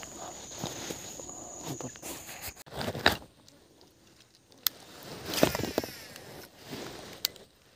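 A steady high insect drone for the first two and a half seconds, cutting off abruptly, then scattered knocks and rustles, the loudest about three seconds in.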